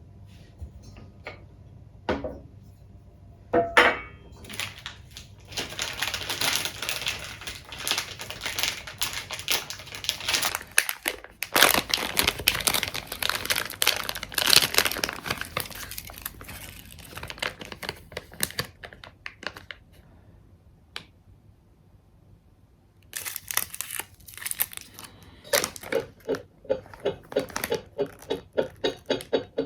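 Crinkling and rustling, like packaging being handled and torn open, with scattered clicks. Near the end there is a run of quick, evenly spaced taps, about two or three a second.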